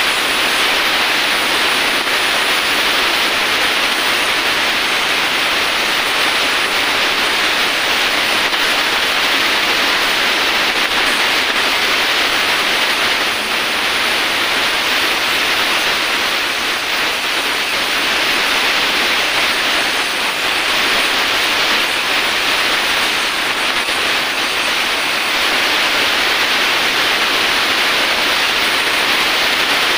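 Oxy-acetylene welding torch, its acetylene made from calcium carbide, hissing steadily as its flame melts aluminium into a broken oil drain-bolt hole.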